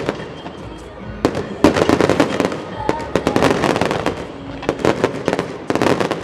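Aerial fireworks going off in rapid clusters of bangs and crackles, densest about two seconds in and again near the end, with music playing underneath.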